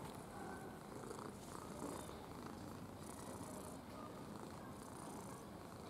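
Ginger cat purring steadily and contentedly as its chin and head are scratched.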